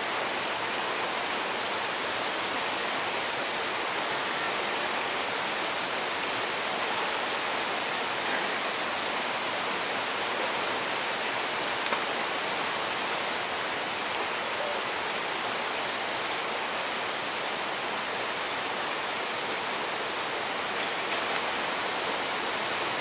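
River water rushing steadily, a constant even hiss.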